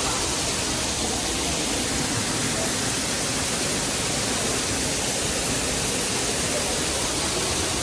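Waterfall: a steady, loud rush of falling water that stays level throughout.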